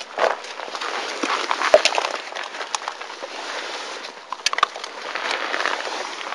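Newfoundland puppies eating at the food bowl: an irregular run of crunching and clicking.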